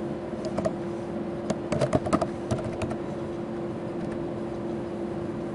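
Computer keyboard being typed on: a quick run of about a dozen key clicks, starting about half a second in and stopping around three seconds in. A steady low hum sits underneath.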